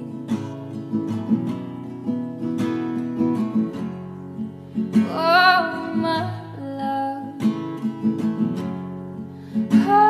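Background song: acoustic guitar picking steadily, with a voice singing a phrase about halfway through.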